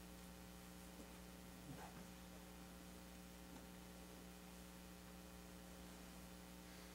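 Near silence: a steady low electrical hum, with a few faint small ticks.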